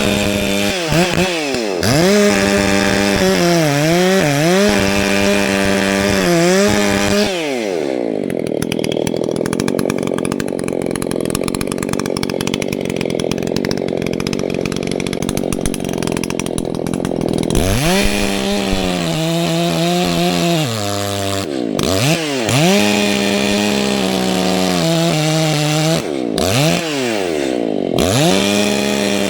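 Two-stroke Echo CS-620PW chainsaw cutting into a large dead tree trunk, its engine pitch sagging and recovering again and again under load. About a third of the way in it drops to a low idle for around ten seconds, then revs back up and cuts again.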